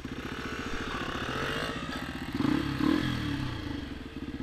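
Small Honda four-stroke single-cylinder dirt bike engines putting steadily at idle. A throttle blip rises in pitch, then an engine revs hard for about a second midway as a bike pulls away off the line, before the putter settles back.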